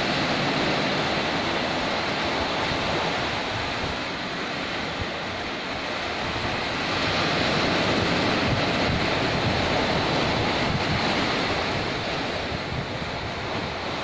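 Small ocean waves breaking and washing up a sandy beach in a steady wash of surf, swelling louder about halfway through, with wind gusting on the microphone.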